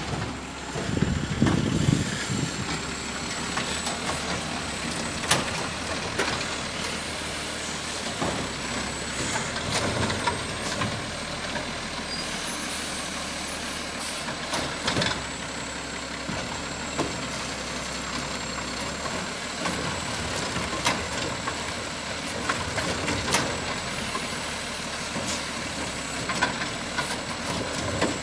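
Garbage truck running at the curb during yard-waste pickup: a steady engine with a thin high whine, and sharp clanks and knocks every few seconds.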